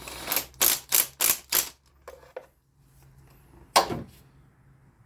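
Mechanical clicking from hand tools and parts handled at the engine: five quick rasping strokes, about three a second, then a single sharp knock a few seconds in.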